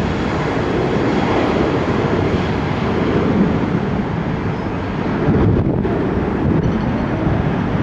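Boeing 777's twin jet engines at takeoff power: a loud, steady rumbling noise.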